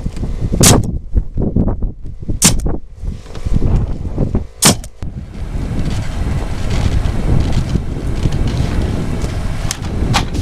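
Nails being driven into roof shingles: sharp single shots about two seconds apart three times, then twice more near the end. Wind rumbles on the microphone throughout.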